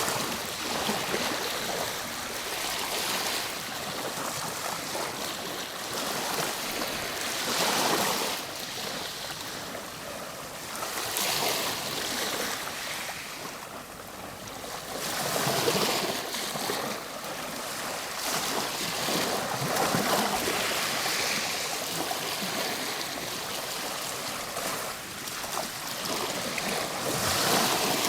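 Ocean waves breaking and washing on a shore, a steady rush of surf that swells into louder surges every few seconds.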